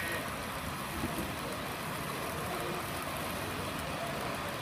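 Model passenger train running past on the layout: a steady rolling noise of its wheels on the track.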